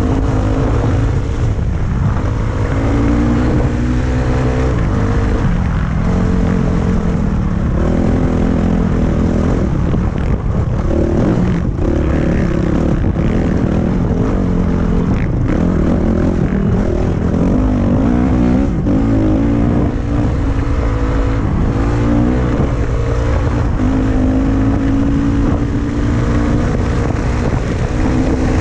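Dirt bike engine running under way, its pitch rising and falling repeatedly as the rider opens and closes the throttle and shifts gears, over a steady rush of wind on the helmet-mounted camera.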